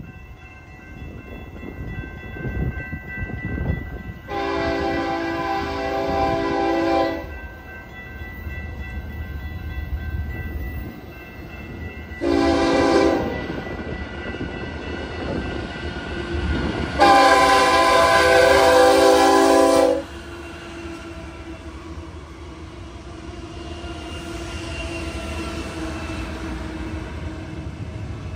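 Freight diesel locomotive air horn sounding three blasts, a long one about four seconds in, a short one near the middle and another long one about two-thirds through, over the rumble of approaching freight trains that grows louder near the end.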